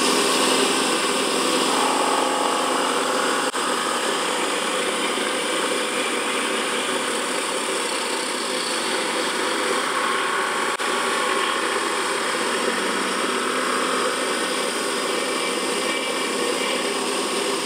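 Small Kamui cue-tip lathe running steadily, its motor and spindle giving an even mechanical whine with several steady tones, as a blade tool turns down a new cue tip on the spinning shaft.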